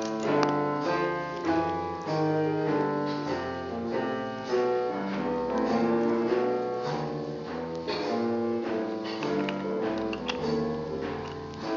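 Instrumental background music, a melody of sustained notes changing at a steady pace.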